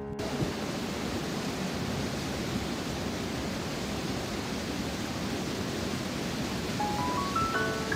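Steady, even rushing of a river's flowing water. Near the end a rising run of single music notes begins over it.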